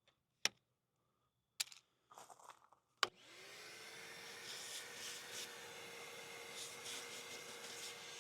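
A few clicks and handling knocks, then a sharp switch click about three seconds in as a shop vacuum starts. Its motor spins up quickly to a steady whine with rushing air as it sucks lint from the dryer vent opening.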